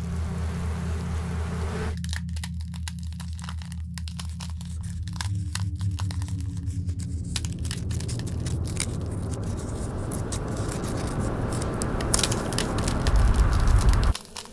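Horror sound design: a low pulsing drone under dense crackling, crunching and tearing effects that thicken and grow louder, then cut off suddenly near the end.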